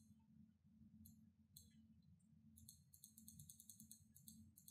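Near silence: a low steady room hum, with faint bursts of rapid high-pitched ticking from a computer pointing device being worked in brush strokes.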